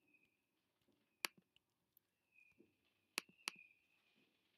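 Near silence with three sharp clicks, one about a second in and two close together just after three seconds, over a faint high whine.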